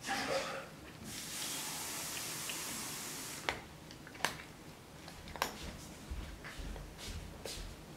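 A steady hiss for about two and a half seconds, then a Bengal cat crunching dry kibble off a wooden floor, a few sharp separate crunches.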